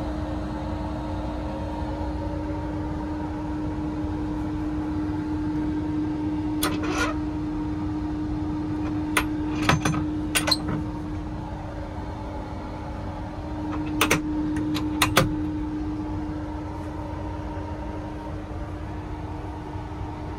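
Steady machinery hum with a low rumble inside a sleeper-train compartment, most likely the carriage's air conditioning and power supply. Single sharp clicks and knocks break in about a third of the way through and again at roughly two thirds.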